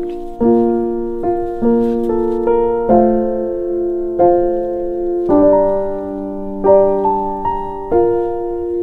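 Background piano music: chords and single notes struck every second or so and left to ring.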